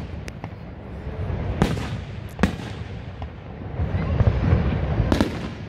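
Aerial fireworks shells bursting: several sharp bangs a second or so apart, over a low rumbling boom from the display.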